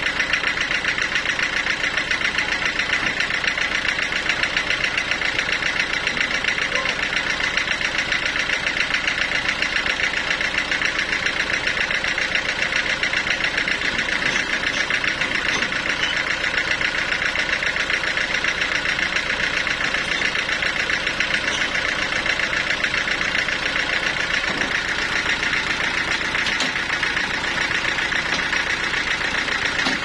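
Band sawmill running steadily with no cut in progress. Its drive and spinning blade make a continuous sound with a rapid, even pulsing.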